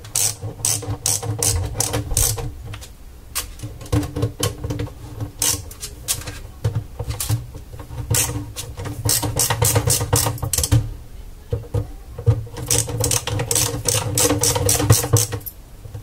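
Screwdriver driving the hard drive's mounting screws into the underside of a DVR's sheet-metal case: bursts of rapid metallic clicking and scraping, several runs of a second or two with short pauses between.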